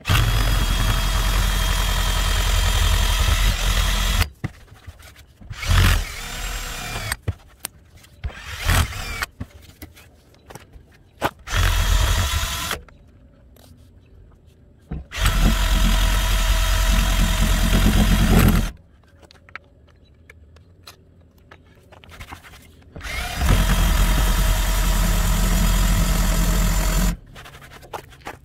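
Cordless drill spinning a rubber adhesive-eraser wheel against a truck's painted door panel, stripping off pinstripe decal. It runs in several bursts of a few seconds each, with quieter handling clicks in the pauses.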